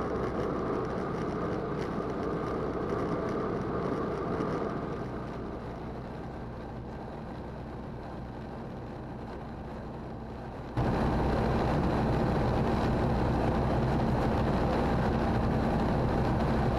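Roland Aircraft Z602 ultralight's engine and propeller droning steadily in cruise, heard in the cockpit. The drone eases a little softer about five seconds in, then jumps abruptly louder about eleven seconds in.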